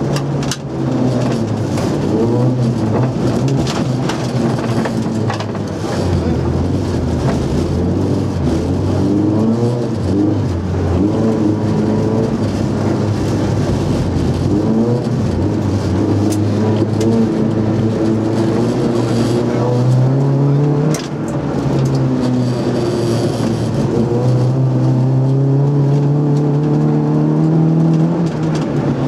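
Nissan Micra rally car's four-cylinder engine heard from inside the cabin, driven hard: the revs climb and drop again and again through gear changes and corners, with a brief lift about two-thirds through.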